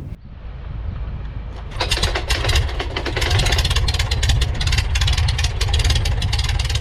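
Aeronca Chief's light-aircraft piston engine running, with a low rumble that jumps to a much louder, fast pulsing run about two seconds in.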